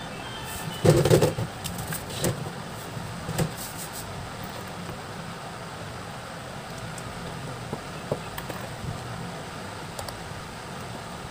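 Handling noise from an opened smartphone and small tools on a workbench: a quick cluster of clicks and knocks about a second in, then a few scattered taps, over a steady low hum.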